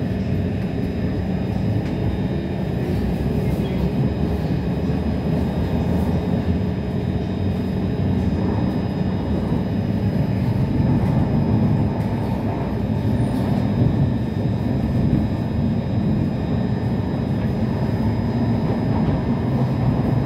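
Cabin noise inside an SMRT C151 metro train running on the elevated track: a steady rumble of wheels on rail and running gear, growing slightly louder about eight seconds in.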